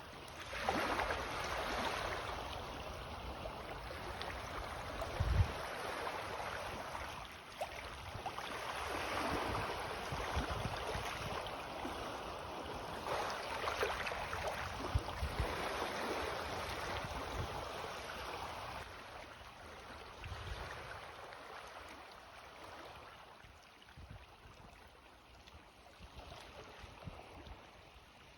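Small sea waves (ripples) washing in on the shore with the rising tide, swelling and fading every few seconds and quieter near the end, with a few low thumps, the strongest about five seconds in.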